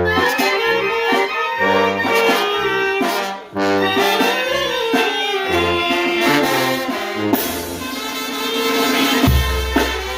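Mexican village brass band (banda de viento) playing, with trumpets, saxophones and trombones carrying the melody over low bass notes and a short break about a third of the way through. Near the end, cymbals and a heavy low drum beat come in.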